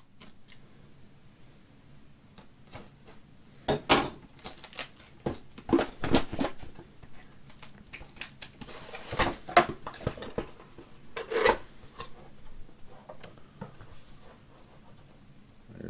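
Cardboard kit box being handled and opened by hand: a run of rustles, taps and scrapes, with a longer sliding scrape near the middle.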